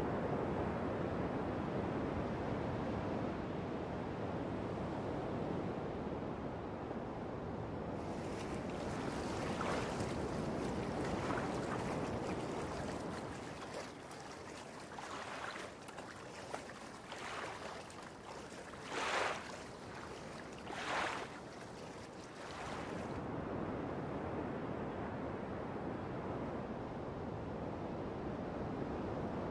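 Seaside wind and surf as a steady rushing. For a while in the middle it gives way to quieter, calm water with about six short splashes of small waves lapping at the shore, the loudest near 19 and 21 seconds.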